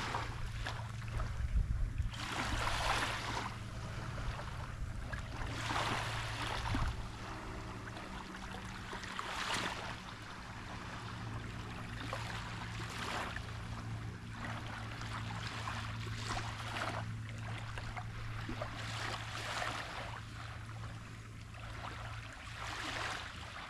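Small waves washing onto the river shore, a rushing swell about every three seconds, over a steady low hum.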